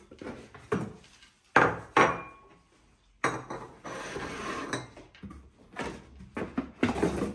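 Porcelain tea cup and saucer clinking as they are unpacked and set down on a table, with cardboard boxes being handled. Two sharp clinks come about a second and a half in, the second ringing briefly; then a stretch of rustling cardboard and packing, and a run of lighter knocks near the end.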